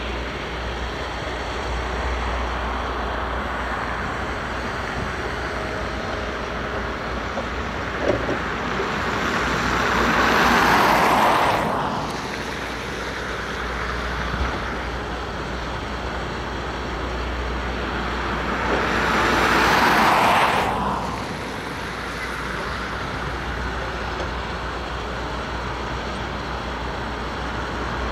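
Steady road-vehicle and engine noise. Twice a vehicle passes by close, each pass swelling over a couple of seconds and then falling away quickly. There is a single short knock about eight seconds in.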